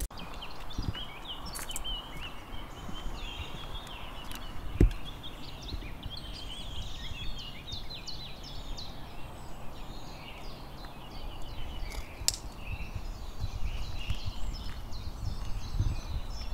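Birds singing, many short overlapping chirps, over a steady low rumble. One sharp thump about five seconds in is the loudest sound.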